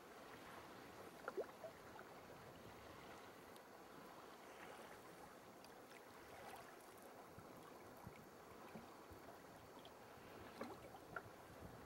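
Faint lapping of sea water against a sea kayak, with a few small splashes and drips, one pair about a second in and a cluster near the end.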